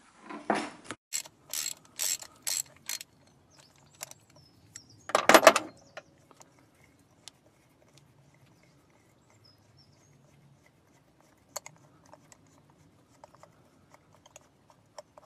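Hand tools working a spark plug loose from a car engine's plug well: a run of about five sharp metal clicks, a louder clatter about five seconds in, then scattered faint ticks.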